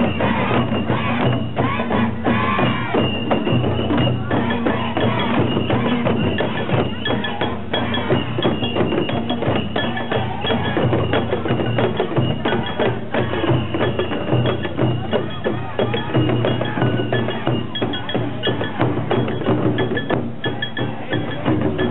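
Oeshiki procession music: many uchiwa daiko fan drums beaten in a fast, steady rhythm, with small hand gongs (kane) ringing sharply over them.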